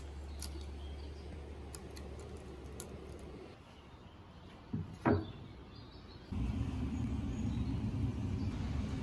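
Two short wooden knocks about five seconds in, the second one louder, as a newly made wooden beam is set down on a wooden workbench. A faint low hum runs underneath and gives way about six seconds in to a louder steady low rumble.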